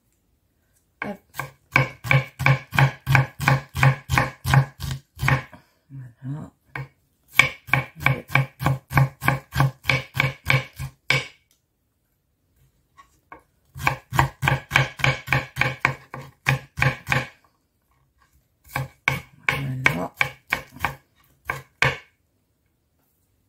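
Kitchen knife chopping shallot on a wooden cutting board: four runs of quick, even knocks at about five a second, separated by short pauses.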